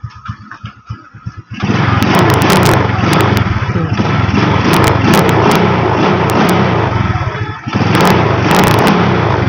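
Small motorcycle engine, running on a 24mm carburettor breathing through the stock airbox, idling and then revved hard twice: the first rev is held for about six seconds, then after a brief dip it is revved again before dropping back to idle near the end. The revving tests whether the carb takes throttle cleanly with the stock airbox.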